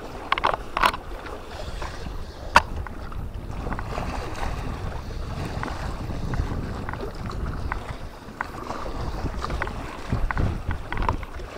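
Wind rumbling on the microphone over water sloshing against concrete breakwater blocks. There are a few sharp clicks in the first three seconds.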